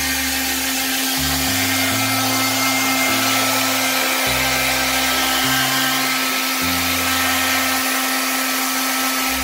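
Hair dryer running steadily, a motor hum with rushing air, blowing two wet ducklings' down dry. Soft background music with slowly changing bass notes plays underneath.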